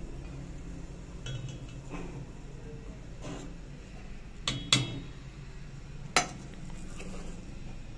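Metal ladle clinking against metal cooking pots as boiled vermicelli is scooped up and tipped into a pot of milk. A few sharp, ringing clinks, the loudest a quick pair about four and a half seconds in and another near six seconds.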